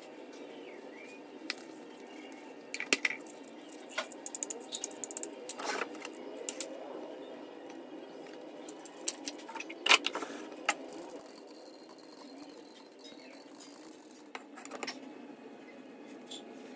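Scattered light clicks and clinks as a small brass oil lamp (diya) and its wick are handled and set in place, the sharpest about ten seconds in, over steady background noise.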